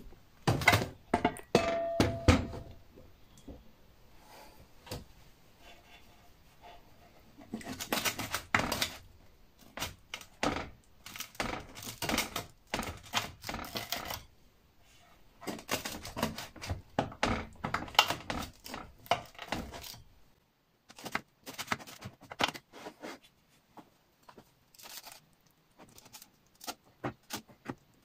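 A metal baking tray knocking and clattering onto a stove top, one knock ringing briefly. Then a knife sawing through a pan pizza's crust and scraping against the metal tray in rapid repeated strokes, thinning to a few light scrapes near the end.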